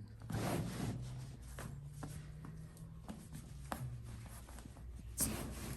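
Hands working a patient's feet on a chiropractic table: rustling, a few faint clicks, and a low hum underneath for most of the time.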